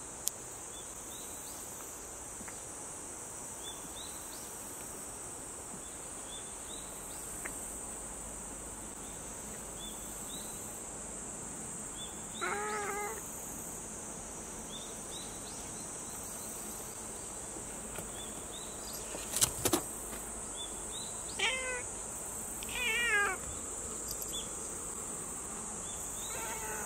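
Cat meowing a few short times, once about halfway through and twice more later, over a steady high insect chorus. A couple of sharp knocks a little after two-thirds of the way through are the loudest sounds.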